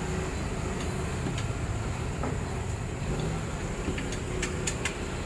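Steady low rumble of street traffic, with a few light clicks near the end from a hand tool gently tightening the tappet cover bolts on the Alto's engine.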